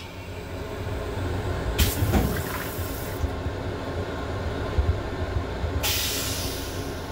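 LIRR M7 railcar toilet flushing: a rush of rinse water starts about two seconds in and stops a second later, then a second, louder rush comes near the end and fades. A low rumble from the train runs underneath.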